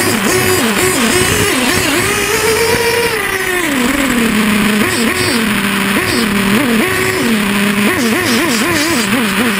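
Radio-controlled model snowmobile's motor, heard from a camera riding on it, revving up and down with the throttle several times a second. The revs hold high for a couple of seconds early on and then drop, before the quick blipping resumes.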